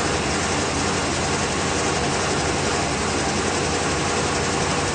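1987 Chevrolet 305 small-block V8 with throttle-body injection idling steadily on wood gas alone, its gasoline supply shut off.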